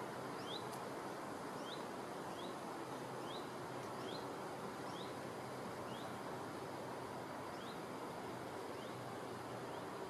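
A bird repeating a short, rising chirp about once a second, over a steady background hiss of open-air ambience.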